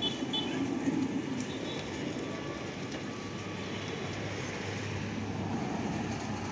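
Steady low background rumble, with a couple of short high beeps right at the start.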